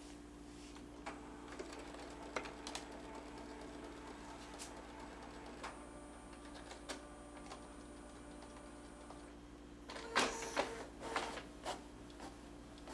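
Canon i560 inkjet printer working through a print job: faint clicks, then a steady whirring whine of its motors for a few seconds, then a burst of loud clicking and clattering about ten seconds in.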